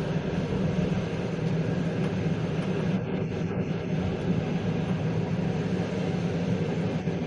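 Passenger train running along the track, heard from inside the carriage: a steady, even rumble of wheels on rails.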